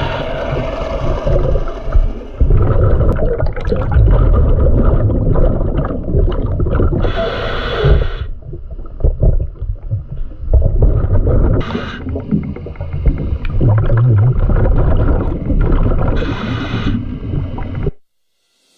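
Scuba diver breathing through a regulator underwater. A short hiss of inhalation comes about every four to five seconds, with a loud, bubbling rumble of exhaled air between. The sound cuts off just before the end.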